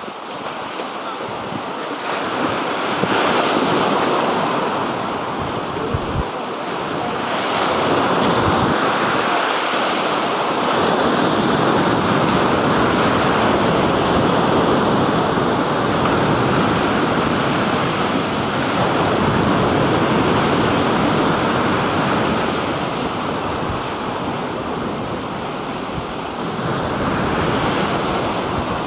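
Black Sea surf breaking and washing up the shore, the rush of water swelling and easing every several seconds. Now and then wind buffets the microphone with a brief low thump.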